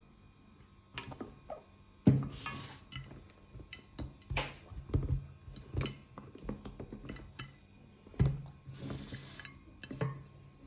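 Whole tomatoes and green peppers set down one by one into a ceramic baking dish: a string of irregular soft knocks and thuds on the dish, the heaviest about two seconds in and again near the eight-second mark, with a couple of brief rustles.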